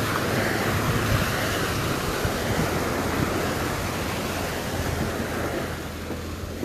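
Sea waves breaking and washing up on a beach, with wind rumbling on the microphone; the wash is strongest at first and eases off near the end.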